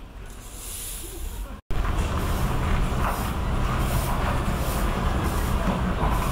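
Steady outdoor background noise with a low rumble. It drops out for an instant about one and a half seconds in and comes back louder.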